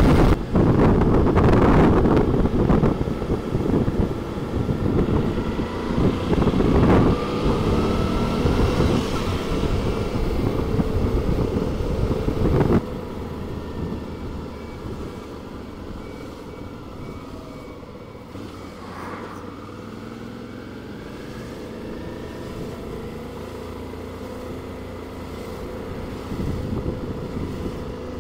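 Motorcycle riding at speed with heavy wind noise on the microphone. About halfway through it cuts sharply to quieter, slower riding in town traffic, with the engine running steadily.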